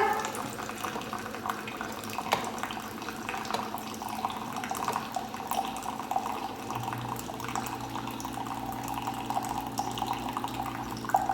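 Keurig single-serve coffee maker brewing a 12-ounce cup: a steady stream of coffee trickling into the mug. A low steady hum joins about two-thirds of the way through.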